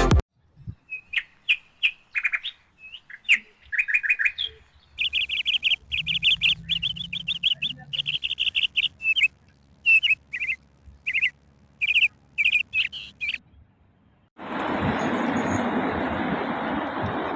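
Small birds chirping in quick, short repeated notes, with pauses between the runs. About fourteen seconds in, it cuts abruptly to a steady rush of city street traffic.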